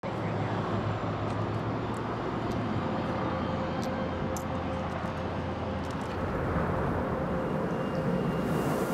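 Steady outdoor traffic ambience: an even low rumble with a faint steady hum, the lowest part easing off about six seconds in.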